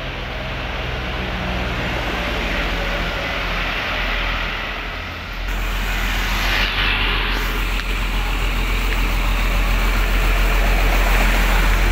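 Street traffic with trucks driving past, then a large coach's diesel engine idling close by, a steady low rumble that grows louder toward the end, with a brief hiss partway through.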